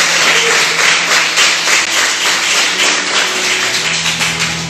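Church congregation applauding: a crowd of hands clapping in a hall. A low held musical tone comes in under the clapping about halfway through.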